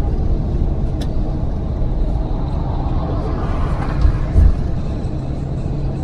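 Steady low engine and road rumble heard inside a moving bus, with two short low thumps about four seconds in.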